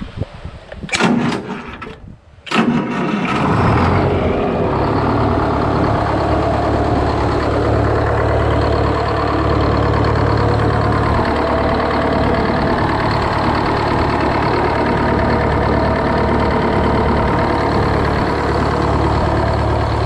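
GM 4-71 supercharged two-stroke diesel being cranked on the starter, catching about two and a half seconds in and settling into a steady idle.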